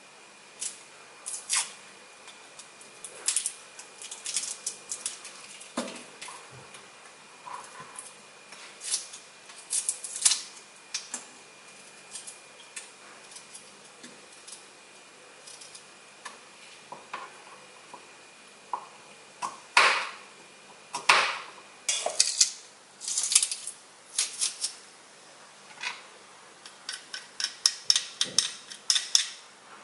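Kitchen knife working on garlic cloves: scattered small clicks and scrapes of the blade against the cloves and a plastic cutting board, with light knocks and clinks. The clicks come closer together in the last third.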